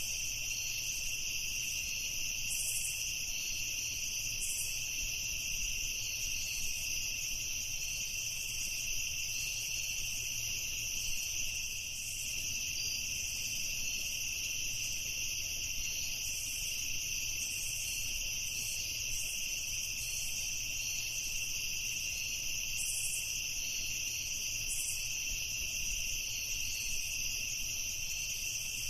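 A chorus of crickets chirping at night, a steady high-pitched trilling that never pauses.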